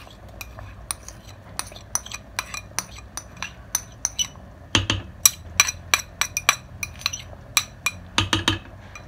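Metal spoon scraping and tapping minced garlic out of a bowl into a pot of thick tomato sauce: a run of sharp clinks, two or three a second, with heavier knocks about five seconds in and again near the end.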